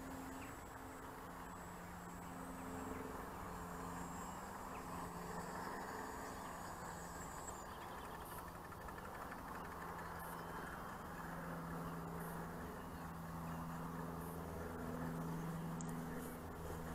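Small electric motor and propeller of a radio-controlled model plane droning faintly overhead, its pitch shifting up and down as the plane circles, over a steady hiss.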